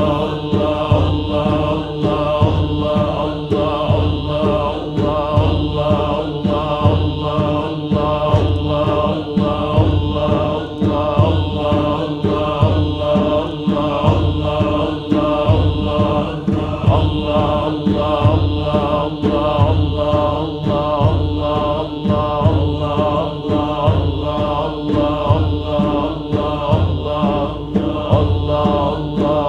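A group of men chanting Naqshbandi dhikr in unison, repeating "Allah" in a fast, steady, unbroken rhythm.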